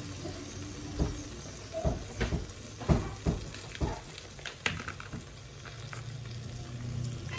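Canned diced tomatoes sizzling in the hot sauté pot of an Instant Pot Gem multicooker, over browned pork. Through the first half there is a quick run of sharp knocks and clatters from the can and utensil against the pot.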